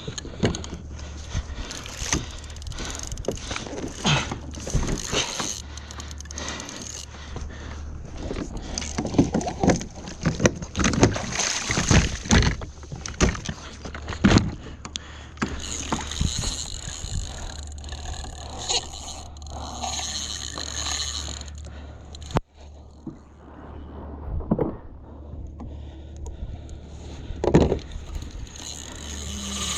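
Knocks, scrapes and water splashing on a plastic fishing kayak while a hooked mahi mahi is fought, with stretches of a fishing reel being cranked. Many short sharp knocks are scattered throughout over a steady low hum.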